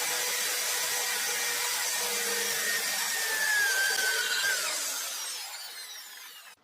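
Friction welding: a workpiece spun by a power tool grinds against another piece with a high, rasping squeal. About three seconds in, one squealing tone slides down in pitch, and over the last second and a half the sound fades away as the spinning slows.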